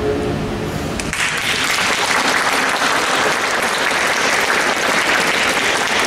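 A mixed choir's last chord fades out, and about a second in the audience starts applauding, clapping steadily from then on.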